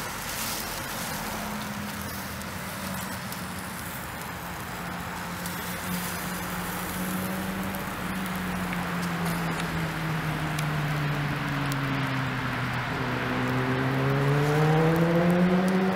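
An engine running, its pitch sinking slowly and then rising again as it grows louder near the end.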